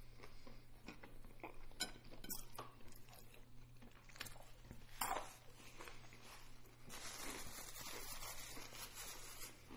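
Quiet eating sounds: fried chicken being bitten and chewed, with scattered small clicks and knocks from a fork and food containers. A stretch of napkin rustling runs from about 7 s to 9.5 s.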